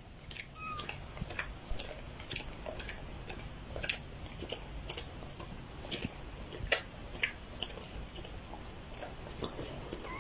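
Irregular light clicks and ticks, about one or two a second, over a faint low steady hum.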